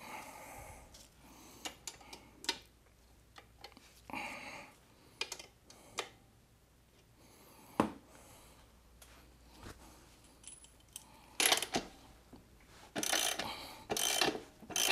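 Faint workshop handling noise: scattered light clicks and knocks, with a few short rustles.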